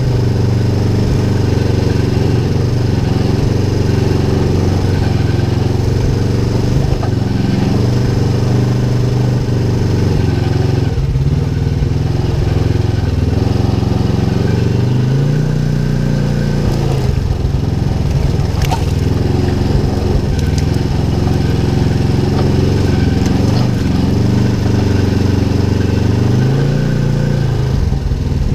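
Polaris RZR XP 1000's parallel-twin engine running under way, heard from inside the cab. Its pitch steps up about halfway through and again near the end.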